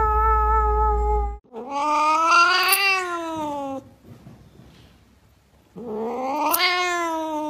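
Domestic cats vocalising: a long wavering yowl over a low hum that cuts off about a second and a half in, then two long drawn-out meows, each rising then falling in pitch, from a cat complaining as its claws are clipped.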